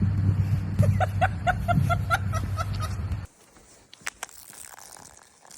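A dog giving a quick run of about eight short, high-pitched yips over a steady low hum. The sound cuts off abruptly a little after three seconds, leaving a quiet background with a couple of clicks.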